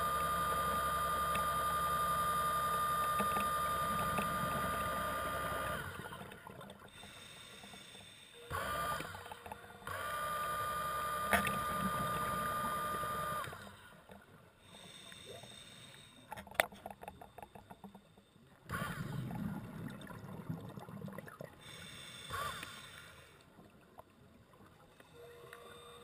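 Underwater scooter (diver propulsion vehicle) motor whining steadily underwater, cutting out about six seconds in. It comes back on for a moment, then runs again for about three seconds. Between the runs there is quieter, irregular rumbling and one sharp click.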